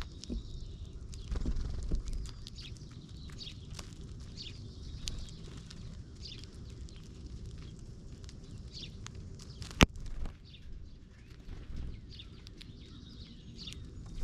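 Small songbirds at a feeder chirping in many short, quick notes that drop in pitch, over a low outdoor rumble. One sharp click about ten seconds in.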